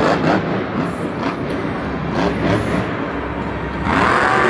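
Monster truck's supercharged V8 engine revving hard under throttle, rising in pitch and loudness near the end.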